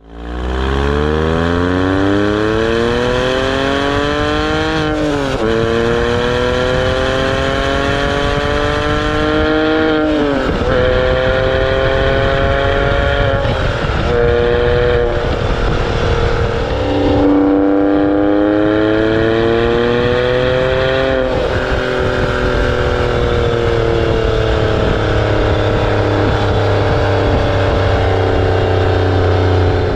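Porsche 997 Carrera S's 3.8-litre flat-six engine with stock exhaust, pulling through the gears. Its pitch climbs steadily and drops sharply at upshifts about five and ten seconds in. It climbs again from about seventeen seconds, then falls away slowly over the last eight seconds as the engine eases off.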